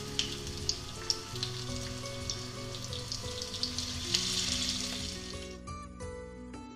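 Flour-dredged hake steaks frying in hot oil in a pan: a steady sizzle with scattered sharp crackles and pops, as the fish is browned and sealed. The sizzle cuts off about five and a half seconds in, leaving soft background guitar music.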